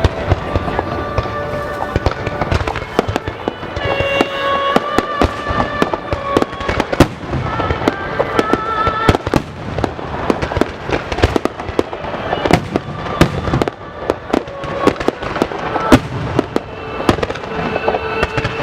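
Starmine fireworks barrage: a dense, continuous run of sharp bangs and crackles from shells bursting in quick succession, over music played with the display.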